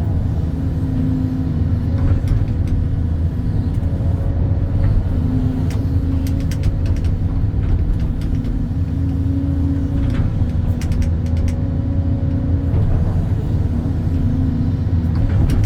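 Excavator's diesel engine running steadily under working load while digging, with a droning tone in the engine note that comes and goes and a few faint clicks.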